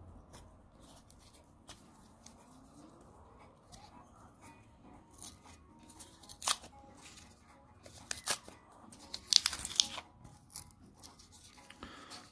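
Paper wrapper of a roll of 2-euro coins being torn and peeled open by hand: scattered crinkling and tearing with a few sharp clicks, the loudest stretch of tearing about nine to ten seconds in.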